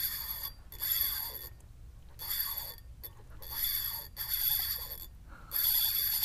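Spinning reel whirring in repeated bursts under a second long, its drag and gears giving a high metallic ringing while a hooked jack crevalle is fought.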